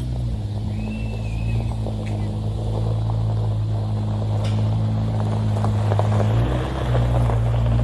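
Background music with sustained low notes that change pitch about six and a half seconds in, with scattered crackling over it.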